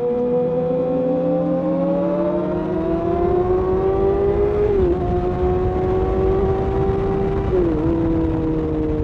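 Suzuki GSX-R sportbike's inline-four engine pulling hard under acceleration, its pitch climbing steadily, then dropping sharply at an upshift about five seconds in and again near the end, where it eases off slightly. Wind rush sits under the engine.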